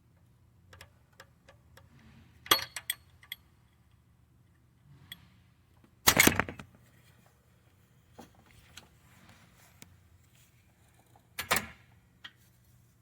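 Irregular metallic clinks and clatter of tools and engine parts being handled, with louder clatters about two and a half seconds in, around six seconds in, and near the end.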